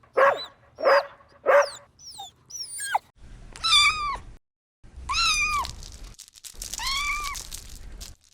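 Kitten meowing: three drawn-out, high meows that rise and fall, in the second half, after three short, sharp, loud cries near the start.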